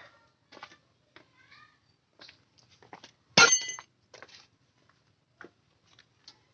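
Small metal parts and hand tools clicking and clinking, with one loud ringing metallic clink about three and a half seconds in.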